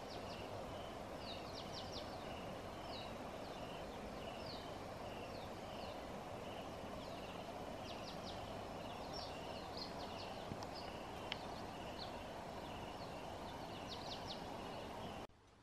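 Faint bush ambience: a steady hiss with birds calling, one short call repeating about twice a second and scattered quick high chirps over it. It cuts off abruptly near the end.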